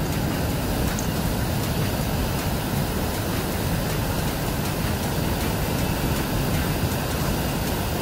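Steady roar of a waterfall's rushing white water.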